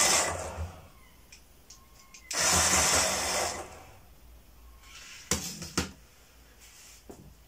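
Small battery-powered electric motor of a wired remote-control plastic toy Mini Traveller whirring in two runs of about a second each as the car drives along the table, showing the old toy still works. Two light knocks follow near the end.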